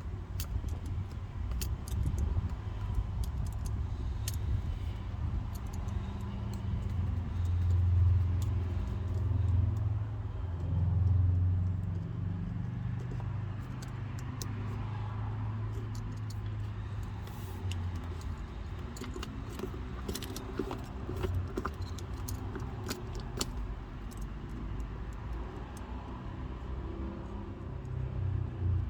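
Low steady vehicle rumble that swells briefly twice, with many scattered light clicks and taps as a craft knife trims vinyl wrap around the shift dial.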